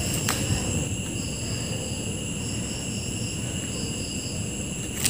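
Crickets trilling in short pulses, over a steady low background hum, with one faint click near the start.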